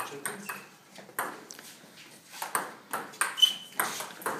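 Table tennis ball clicking off the bats and the top of a Stiga Expert table during a rally: a few hits at the start, a pause of over a second, then a quicker run of hits through the second half.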